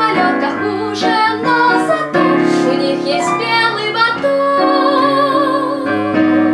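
A woman singing a slow song in Russian to digital piano accompaniment, holding a long note with vibrato toward the end.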